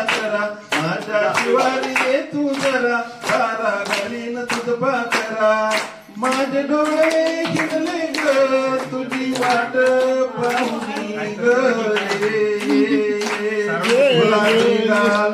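A man singing a song through a handheld microphone, with a group clapping steadily in time along with him.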